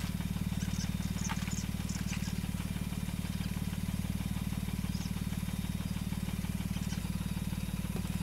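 An engine idling steadily with a low, even pulse, and a few faint light ticks about a second in.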